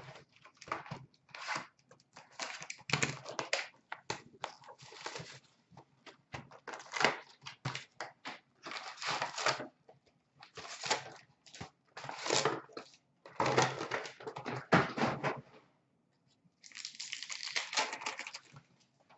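A cardboard trading-card box being opened and the card packs inside handled and torn open: many short, irregular rustles and rips of paper and wrapper, with a longer rustle near the end.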